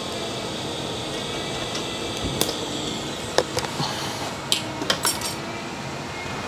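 Steady machine hum with a handful of sharp metallic clinks and taps from about two and a half seconds in, several close together near the middle, as metal objects are handled and set down.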